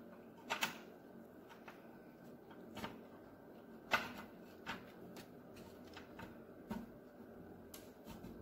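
Scattered small clicks and plastic taps, about six in all, the sharpest about four seconds in. They come from a Commodore 64 keyboard's wire connector being pushed onto its header pins on the motherboard, with fingers knocking against the plastic case.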